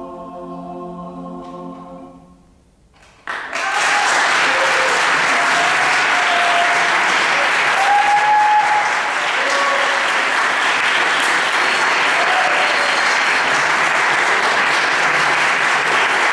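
A mixed choir holds its final sustained chord, which fades away over the first couple of seconds. After a brief hush, the audience bursts into steady applause about three seconds in, with a few voices calling out above it.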